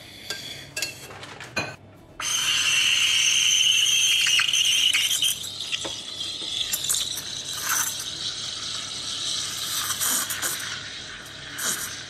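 Gaggia Classic Pro's steam wand steaming milk in a stainless steel pitcher: a steady hiss starts suddenly about two seconds in and eases somewhat after about five seconds. Before it, a few sharp clinks of the metal pitcher.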